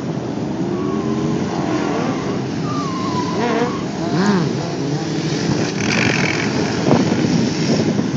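Several sport motorcycle engines revving and riding past, their pitch rising and falling repeatedly as the throttles are worked for stunts.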